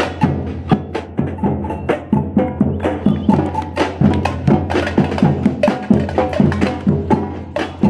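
Music with a quick, steady percussive beat of sharp, wood-block-like strokes.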